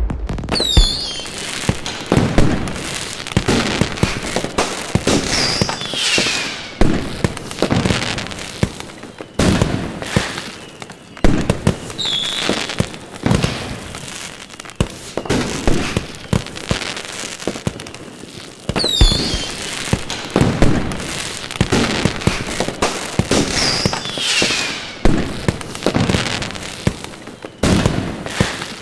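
Aerial fireworks display: a steady run of loud bangs as shells burst, with crackling between them and, every few seconds, high whistles that fall in pitch.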